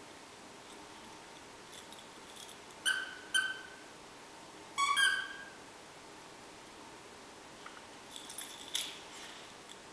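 Squeaky plush soccer-ball dog toy being chewed by a Rhodesian Ridgeback mix puppy: two short squeaks about three seconds in, then a longer squeak rising in pitch a couple of seconds later. Light clicking and rustling follow near the end as the puppy shakes the toy.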